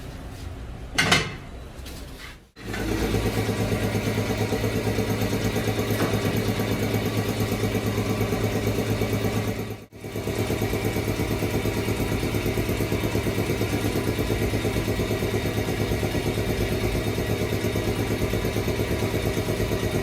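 A motor-driven machine running steadily with a low, evenly pulsing hum, after a sharp click about a second in; the running cuts out briefly near the middle and picks up again.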